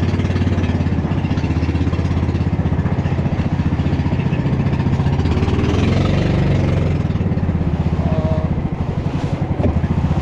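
Small fishing boat's engine running steadily with an even, fast putter.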